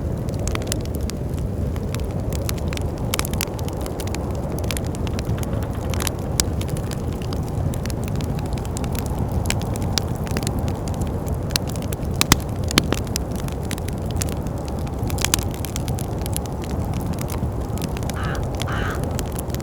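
Wood fire crackling in a fireplace, with scattered sharp pops, over a steady low rush of wind. Near the end a crow caws twice.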